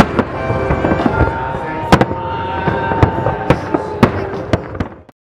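Professional aerial fireworks display: shell bursts going off in quick succession, sharp booming reports, loudest right at the start and about two seconds in, over a continuous crackle. The sound fades out just before the end.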